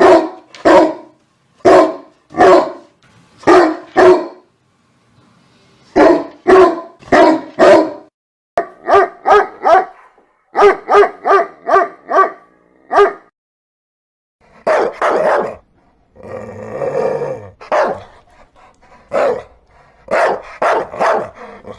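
Dogs barking in runs of short, sharp barks, faster in the middle. About two-thirds of the way through comes a longer, rougher sound of a couple of seconds.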